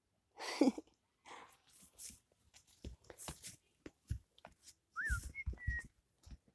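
Rustling and handling noise as a phone rubs against a fleece hoodie, with a short loud sound about half a second in whose pitch falls. About five seconds in comes a short whistled call: a quick rise-and-fall note, then two level notes.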